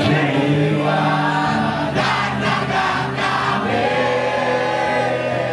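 A boy singing a football supporters' song into a handheld microphone, with the fans around him singing along in held, sustained notes.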